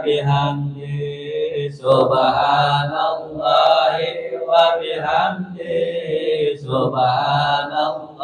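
Men chanting Islamic dhikr in Arabic, a slow, melodic recitation led through a microphone, in long drawn-out phrases with short breaks between them.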